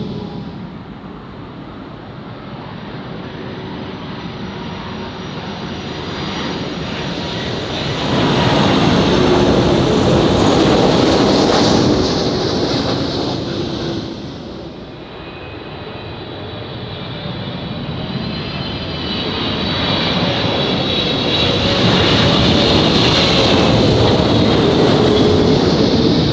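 Jet airliners passing low overhead on final approach to land, one after another. Each pass swells into a loud engine rumble with a high whine and then fades. The first peaks about a third of the way in, and the second builds to a peak near the end.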